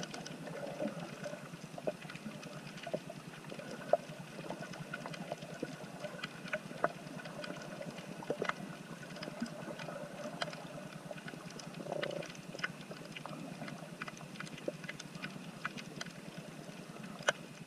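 Underwater reef sound picked up by the camera: a dense, irregular crackle of sharp clicks from snapping shrimp over a steady low hum.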